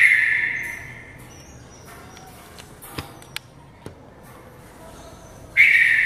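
Red-vented bulbul giving a loud, harsh call at the start and again near the end, each dying away over about a second. A few faint clicks come in between.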